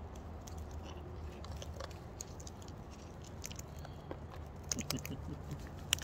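Sulphur-crested cockatoo eating feed from a bucket, its beak making irregular small cracks and crunching clicks. A low steady hum comes in about halfway through.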